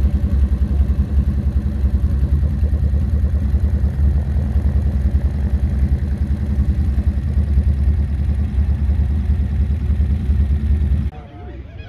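A motor vehicle engine idling close by: a loud, steady low rumble with fast even firing pulses, stopping abruptly near the end.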